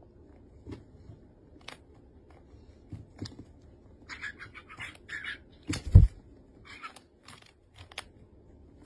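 Small clicks and crunches of a rabbit nibbling and a small white pet bird pecking at a hard treat ball. A few short bird chirps come about four and five seconds in, and a single dull thump, the loudest sound, comes near six seconds.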